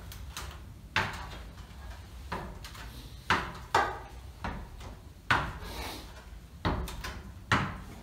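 A man's feet knocking on the rungs of a ladder as he climbs down it: about seven separate clunks at an uneven pace.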